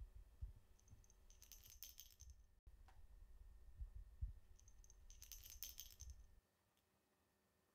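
Two brief, high, tinkling jingles about three and a half seconds apart, over faint low thumps.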